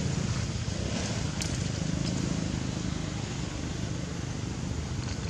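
Steady outdoor background noise with a low rumble and no calls, and a single faint click about a second and a half in.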